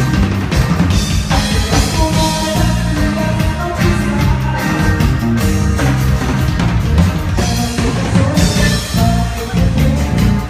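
A band playing live: drum kit, heavy bass and guitar, with some singing, at a steady loud level.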